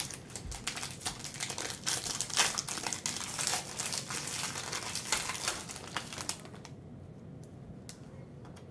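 Foil trading-card pack being torn open, its wrapper crinkling and crackling for about six seconds before it stops.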